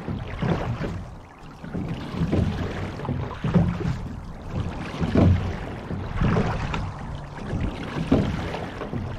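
Rowing shell moving under sculling oars: water rushing and splashing along the hull, the sound swelling and easing in a repeating rhythm with the strokes.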